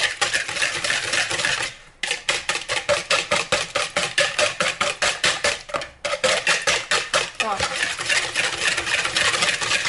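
Eggs with a pinch of salt being beaten by hand in a bowl, the utensil clicking against the bowl in a fast, even rhythm of about six strokes a second. There are two short pauses, about two and six seconds in.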